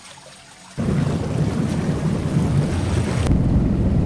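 Hot-tub jets churning the water: a steady, loud, low rumble of bubbling water that starts about a second in.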